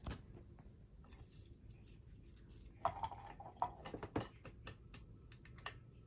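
A run of light, irregular clicks and knocks from a hand handling a small running ceiling fan, bunched in the second half, with a faint steady motor hum coming in near the end.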